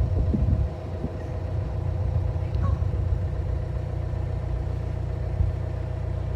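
Narrowboat diesel engine running steadily at slow cruising revs, a low even rumble with a steady hum, with a louder rumble in the first second.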